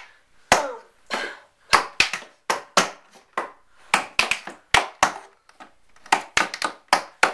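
Metal taps on tap shoes striking the top of a wooden cabinet in an uneven tap-dance rhythm: about twenty sharp clicks, some in quick pairs and short flurries.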